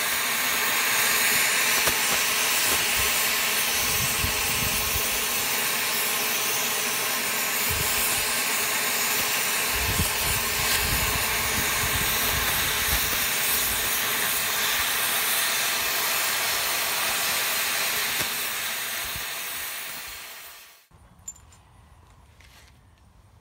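Cutting torch hissing steadily as it pierces a bolt hole through the steel floor of a tractor loader bucket, throwing sparks; the hiss cuts off suddenly near the end when the torch is shut off.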